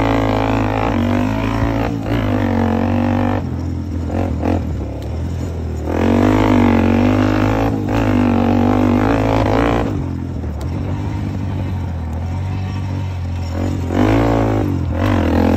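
Honda TRX400EX quad's single-cylinder four-stroke engine revving as it is ridden, pulling hard under throttle and easing off about four seconds in and again about ten seconds in, its pitch rising and falling with the throttle.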